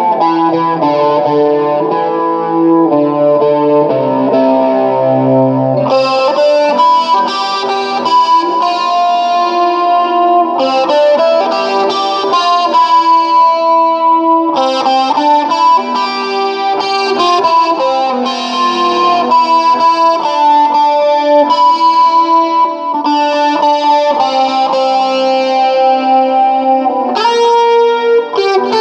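Guitar solo played through effects, a picked single-note melody over lower accompanying notes. About six seconds in the bass notes drop out and the tone turns brighter.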